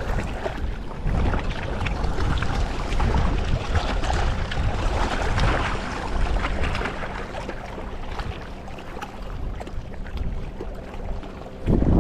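Wind buffeting the microphone in gusts, easing a little in the later part and hitting hard again just before the end.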